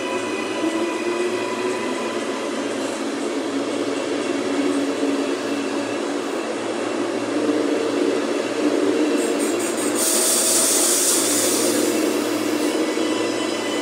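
Queensland Rail NGR electric multiple unit pulling out and rolling past close by, a steady rumble of wheels on rails with thin whining tones over it. About ten seconds in a loud hiss starts and lasts nearly three seconds.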